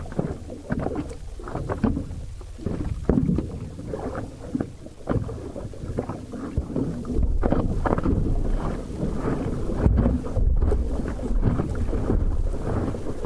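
Water splashing and slapping against the nose of an inflatable stand-up paddle board as it is paddled through wind chop. From about seven seconds in, a steady low rush of wind on the microphone and water grows louder under the splashes.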